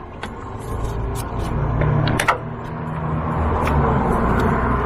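A steady low mechanical hum that slowly grows louder, with a few sharp metallic clinks of hand tools on the 7.3 Powerstroke's starter mounting as it is being unbolted.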